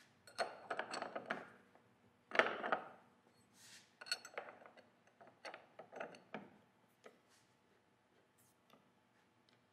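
A collet spanner wrench clinking and scraping against the ER32 collet nut of a CNC tool holder as it is hooked on and turned to tighten the nut. Clusters of sharp metallic clicks, the loudest about two and a half seconds in, stopping about seven seconds in.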